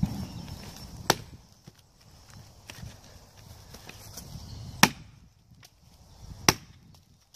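Hatchet chopping into wood on a log, splitting kindling: four sharp chops spread over several seconds, the later two loudest.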